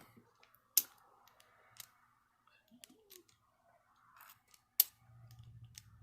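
Sharp metallic clicks from grease gun coupler fittings being handled and snapped, about four of them, the loudest near the end.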